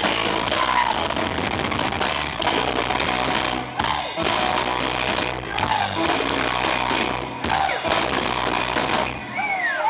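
Rock band with drums and guitar, heavily distorted by an overloaded recording. Sliding, swooping high tones come in near the end.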